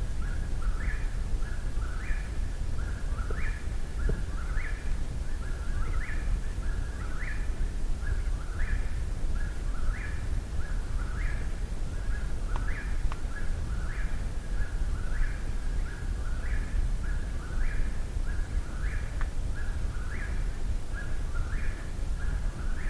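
Eastern whip-poor-will singing close by, repeating its three-part song about every second and a quarter without a break.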